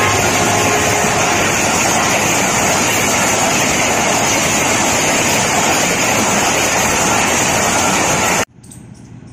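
A Pakistan Railways passenger train's coaches passing close by at speed, giving a steady loud rush of wheels on rail and air. The tail of the locomotive's horn fades out in the first second, and the noise cuts off suddenly near the end.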